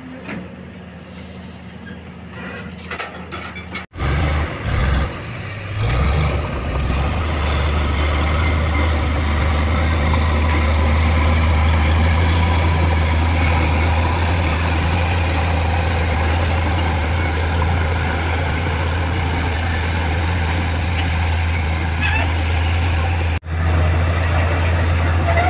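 Kobelco SK200 hydraulic excavator's diesel engine running loud and steady while digging, a low drone with a broad hiss over it. It comes in abruptly about four seconds in after a quieter stretch, surges a few times, and breaks off for an instant near the end.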